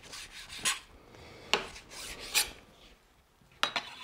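Kitchen knife slicing excess fat off a raw porterhouse steak, the blade rasping through the fat and onto the cutting board in about four short strokes with pauses between them.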